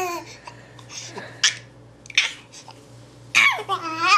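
A baby laughing: a few short breathy bursts, then near the end a loud, drawn-out squeal that dips and rises in pitch.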